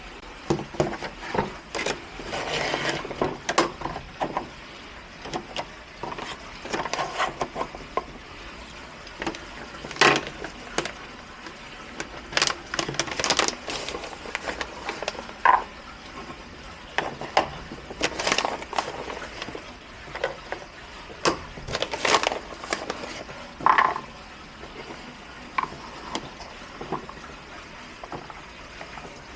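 Irregular clicks, knocks and short scrapes of hard objects being handled, in scattered bursts with pauses between them.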